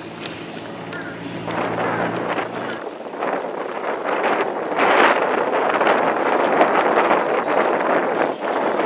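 Bicycle tyres rumbling and rattling over the wooden boardwalk planks, a bumpy ride, growing louder a couple of seconds in.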